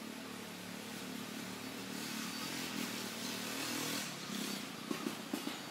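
A motor vehicle engine running steadily, swelling to a peak about four seconds in and then easing off, with a few short taps near the end.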